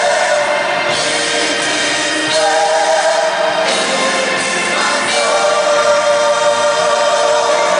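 Music with a group of voices singing together in held notes.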